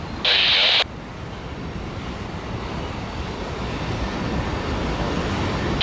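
Freight train's covered hopper cars rolling over a steel trestle: a steady rumble of wheels on rail that grows slowly louder. Just under a second in, a short burst of hiss cuts off abruptly.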